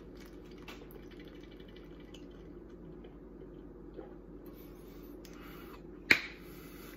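Steady low room hum while a shake is drunk from a plastic shaker bottle, with only faint small sounds; about six seconds in, one sharp click as the bottle is lowered and set down.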